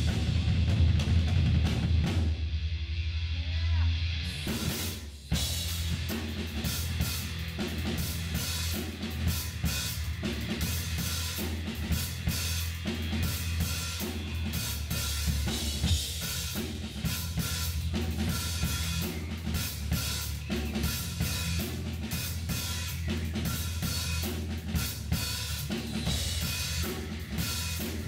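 Acoustic drum kit played live, with kick drum, snare and cymbals over rock backing music. About two seconds in the cymbals drop out for a short break, and around five seconds in a steady, regular groove starts up again.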